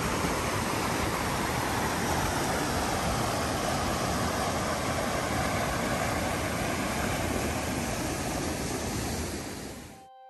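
Waterfall and rapids pouring over rock, a steady rush of water that cuts off suddenly near the end.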